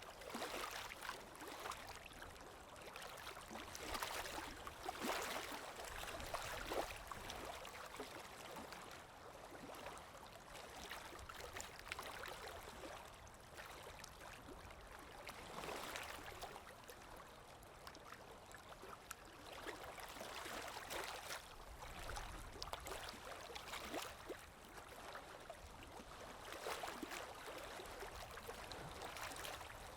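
Sea waves washing in, a steady rush that swells and fades every few seconds as each wave breaks and draws back.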